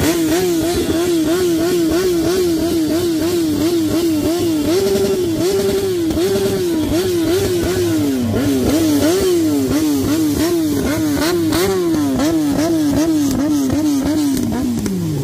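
Yamaha R1 sportbike's inline-four engine held at high revs for a burnout through a short aftermarket silencer, its pitch rising and falling about twice a second as the throttle is pumped. Near the end the revs drop sharply.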